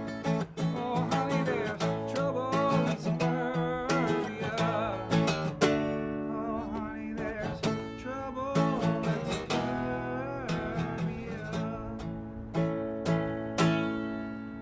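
Acoustic guitar strummed in a steady chord pattern through the closing bars of a song, with the last chord left ringing and fading near the end.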